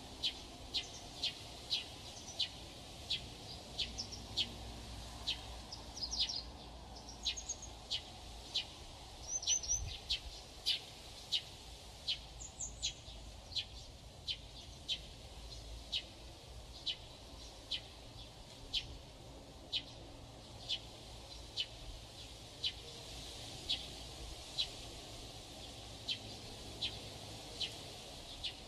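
Birds calling outdoors: one bird repeats a short, sharp chirp at an even pace, about three every two seconds, while a few other bird notes break in now and then. A faint low background noise runs underneath.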